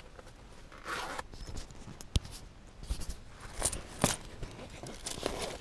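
Vending-machine cash being handled: paper bills rustling in uneven bursts, with a few sharp clicks.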